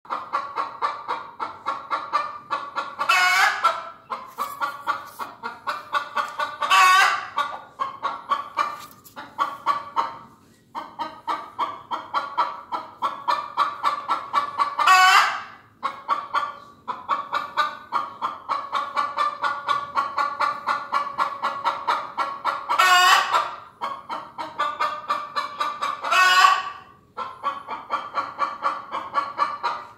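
Chicken clucking in a steady run of about four clucks a second, with a few short pauses. Five louder, drawn-out calls break through the run.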